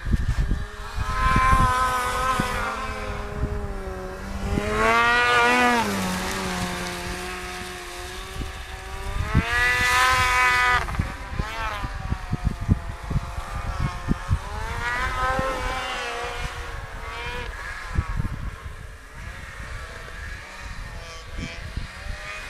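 Snowmobile engines revving up and fading away several times, the pitch climbing as each one speeds up, with wind buffeting the microphone throughout.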